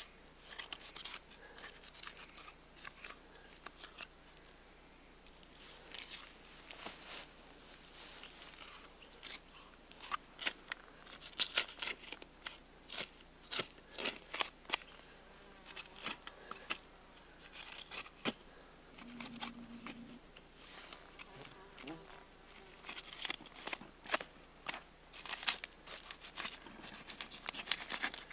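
Knife cutting and scraping meat off an elk's ribs and neck: irregular soft clicks and scrapes of the blade against bone and flesh, with tearing of meat.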